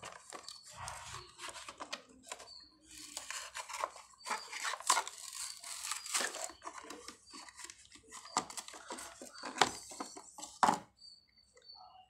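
Clear plastic blister pack being torn and peeled off its cardboard backing, with crinkling plastic and sharp crackles, to free a toy car. The tearing stops about a second before the end.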